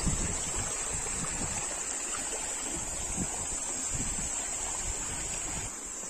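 Small mountain stream running, with a steady high-pitched insect chorus over it and some wind rumble on the microphone.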